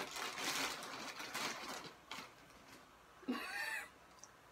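Plastic carrier bag rustling and crinkling for about two seconds, then a short vocal sound a little over three seconds in.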